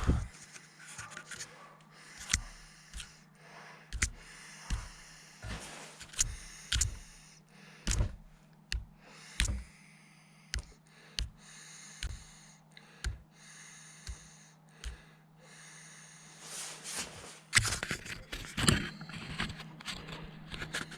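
Irregular sharp knocks and scrapes of hand tools working old rubber bushings out of a VW T3 track control arm, over a steady low hum, with a cluster of louder knocks near the end.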